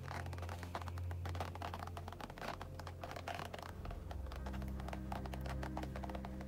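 Thick acrylic paint dripping through the holes of a perforated metal grill rack onto a canvas below: a steady run of many small, irregular pats and ticks.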